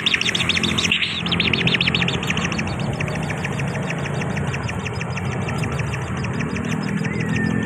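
Bird chirping in a fast, even series of short calls, about a dozen a second. The calls are loudest at the start and weaken after about a second, over a steady low hum, with a short whistled note near the end.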